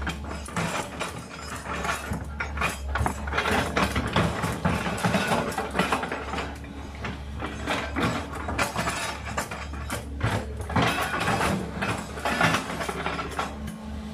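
Sumitomo SH210 hydraulic excavator working, its diesel engine droning steadily under irregular metallic clanking and creaking from its tracks and moving steelwork.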